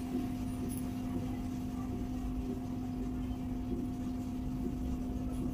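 Steady machine hum: one constant low tone with a fainter higher tone above it, over a low rumble.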